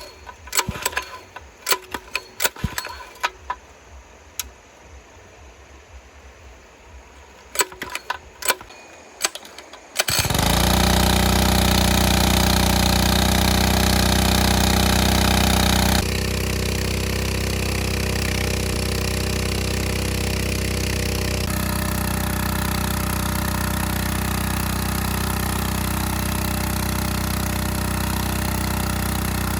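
A few sharp knocks and clatters, then about a third of the way in a small engine-driven water pump comes in abruptly and runs loud and steady.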